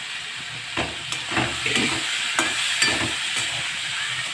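Cubed pumpkin and potato frying in oil in a kadai, with a steady sizzle, while a spatula stirs them and scrapes and knocks against the pan several times.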